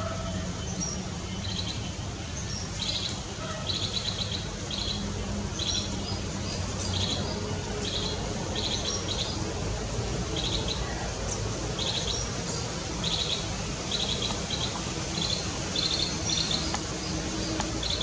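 Bee-eater calling over and over: short, high, trilled chirps in quick clusters about every second, over a steady low background hum.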